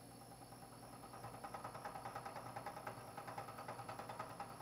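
Vertical milling machine's spindle running while the cutter chamfers the edge of a brass block. A rapid, rhythmic ticking of the cut starts about a second in and grows louder.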